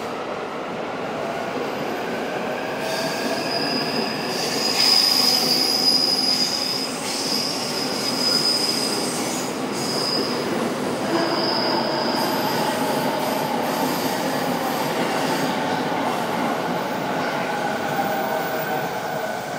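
Tokyo Waterfront Area Rapid Transit 70-000 series electric train rumbling into the platform and slowing, with a high-pitched squeal that comes and goes in the first half. In the second half the whine of its Mitsubishi IGBT inverter motor drive comes through.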